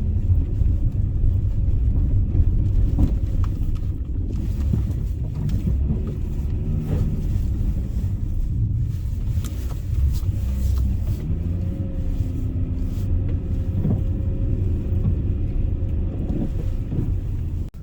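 Steady low rumble of a car creeping through snow in low gear with all-wheel drive locked, heard from inside the cabin, with a few faint knocks.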